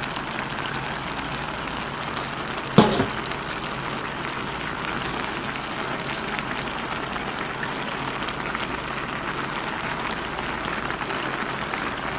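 Shrimp masala sauce simmering in a pan under a layer of fresh petchay leaves: a steady sizzling hiss, with one sharp knock about three seconds in.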